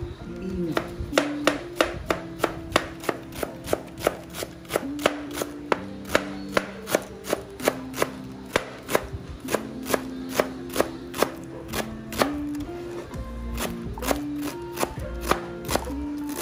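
Chef's knife slicing napa cabbage on a plastic cutting board: a steady run of crisp knife strikes against the board, about two or three a second. Background music plays underneath.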